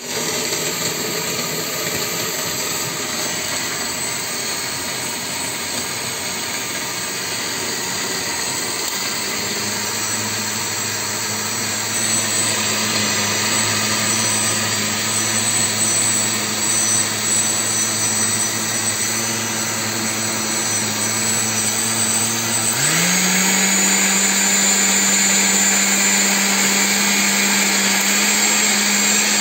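Oster 6812-001 blender's motor running steadily, blending a pale liquid in its glass jar. About two-thirds of the way through, its pitch steps up and it gets louder as it goes to a higher speed.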